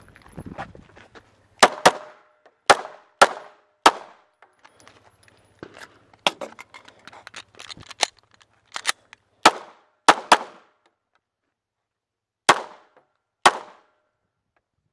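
Close pistol gunshots, about fifteen in all, fired as singles and quick pairs with short pauses between strings.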